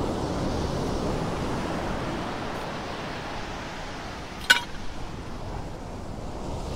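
Surf washing ashore, with wind buffeting the microphone. About four and a half seconds in comes a single sharp metallic clink that rings briefly.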